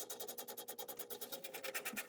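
Ratchet wrench clicking rapidly and evenly as it loosens a pipe clamp, over a faint steady hum.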